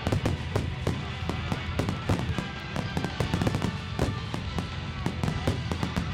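Aerial fireworks barrage: shells bursting in a rapid, irregular volley of sharp bangs, several a second, over a continuous low rumble.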